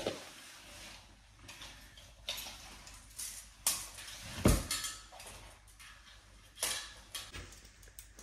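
A series of knocks, clunks and clatters from a table being handled, with the loudest, a heavy thump, about four and a half seconds in.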